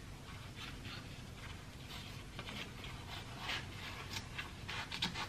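Quiet, scattered rustling and rubbing as hands fold and press a filled tortilla into a burrito on a plastic cutting board.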